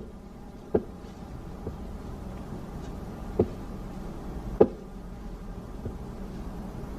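Pool balls clacking: about six short, sharp knocks at uneven intervals over a low, steady room hum.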